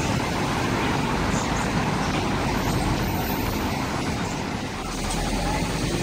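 Steady road traffic noise from buses and cars on a busy street.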